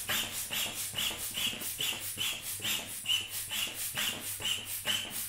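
Foot-operated air pump being pumped at a fast, even rhythm of about three squeaky puffs a second.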